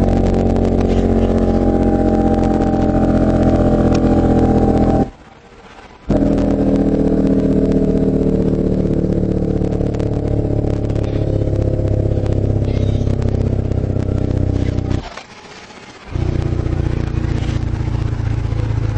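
Two 10-inch Nitro BMW-3710 subwoofers in a sealed enclosure playing a loud low bass test tone, thick with buzzing overtones. It cuts out twice for about a second.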